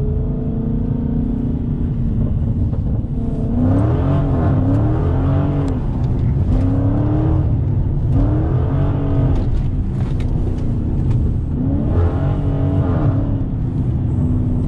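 Dodge Challenger Scat Pack's 6.4-litre HEMI V8 running, heard from inside the cabin. From about three and a half seconds in it is revved up and let fall again and again, some six times.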